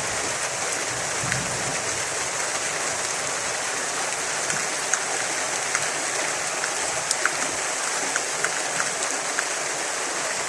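Heavy rain falling steadily, with scattered sharp drip ticks over the even hiss.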